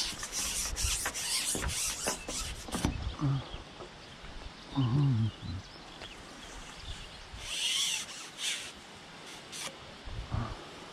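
Close handling noise from a fishing pole being gripped and moved among the bank-side reeds: dense crackling and rustling for the first three seconds, a brief low wordless vocal sound about five seconds in, and a short rustle near eight seconds.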